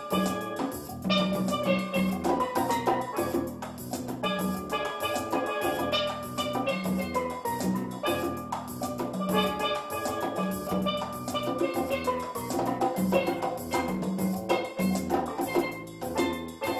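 Steel drum duo playing a lively tune: a ringing melody of struck notes over a repeating lower bass part.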